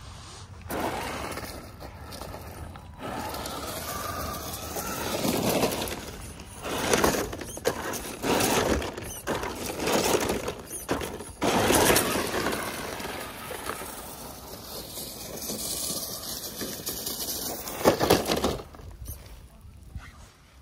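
ZP1007 RC crawler driving over loose stones, gravel and dry leaves, its tyres crunching and clattering on the rocks with the motor running. Near the end there is a sharp, loud knock as the truck tips over onto its side.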